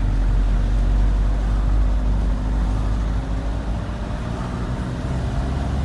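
Steady low rumble of engine and road noise inside a moving car.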